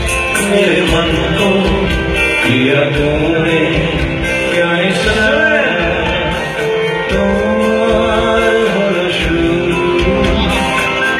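Live band with male vocals amplified through a concert PA, heard from the audience: a man singing a Hindi film song over guitar and drums.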